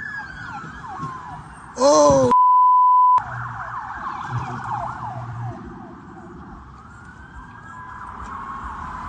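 Several police car sirens wailing, their pitch sweeping up and down and overlapping one another. About two seconds in, a short shouted voice is cut off by a loud steady one-tone beep lasting under a second.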